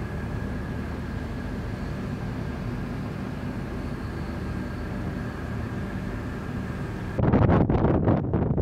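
Steady drone of a ship's machinery with a faint high whine. About seven seconds in it cuts abruptly to wind buffeting the microphone, louder and gusty.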